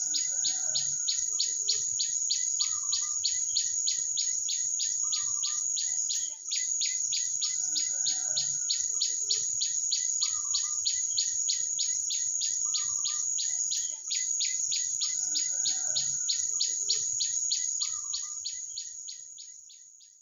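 A loud insect buzz, high and steady with a pulse about four times a second, over short lower bird calls every couple of seconds. The same pattern repeats every seven or eight seconds, and it all fades out near the end.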